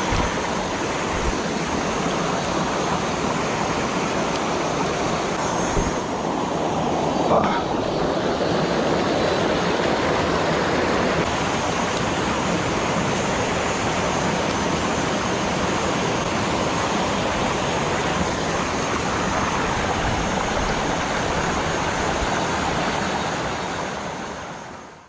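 Rushing water of a small rocky forest creek spilling over cascades and little waterfalls, a steady hiss that fades out near the end.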